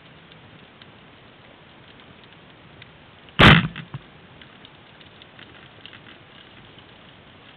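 Rubber-band speargun firing underwater about three and a half seconds in: one sharp, loud crack with a brief rattle after it as the shaft is released. A faint crackle of scattered underwater clicks runs behind it.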